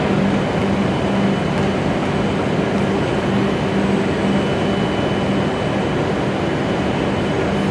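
Steady platform hum beside a standing W7 series shinkansen train: an even hiss with a low steady tone and a faint high whine, the kind given off by a stationary train's air-conditioning and electrical equipment.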